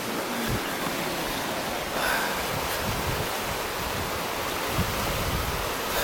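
Sea waves washing over a rocky shore: a steady rushing noise with a few soft low thuds.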